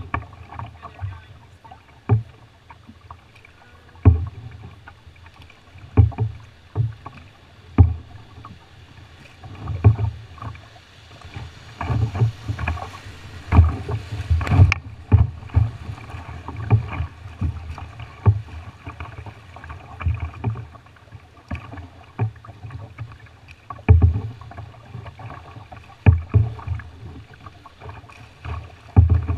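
River water rushing and splashing against an Old Town canoe's hull as it runs through riffles, with a low thump on the hull about every two seconds. A burst of brighter splashing spray builds near the middle and cuts off suddenly.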